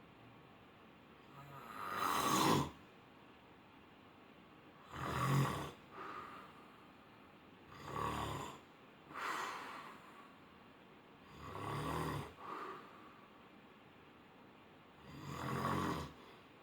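A person snoring in sleep: loud snores come about every three to four seconds, most followed by a shorter, weaker one.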